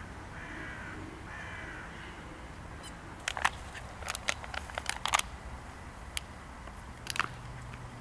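A crow cawing three times in the first two seconds, harsh calls about half a second each. Then a quick run of sharp clicks in the middle and another near the end.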